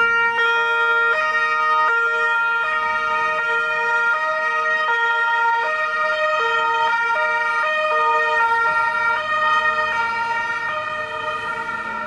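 Emergency vehicle siren sounding steadily, its notes switching about every three-quarters of a second in a two-tone pattern.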